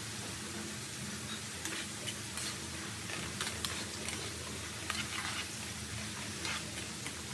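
Potato sticks deep-frying in oil in a metal wok, a steady sizzle. From about a second and a half in, metal tongs stir the fries, with scattered sharp clicks against the wok.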